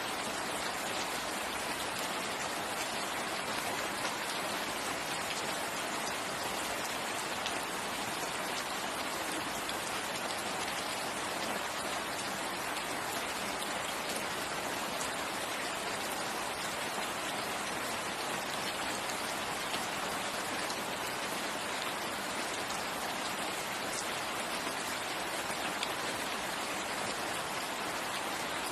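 Steady rain falling, a constant even hiss with faint scattered drop ticks.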